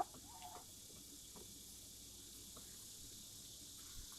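Faint, steady high-pitched insect chorus, like crickets, with a brief chicken call right at the start.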